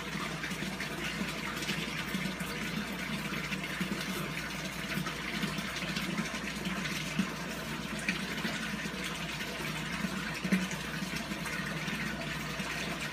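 Fingers kneading damp powdered eel feed in a small ceramic dish, the paste being worked as water is mixed in, with small scraping peaks over a steady hiss.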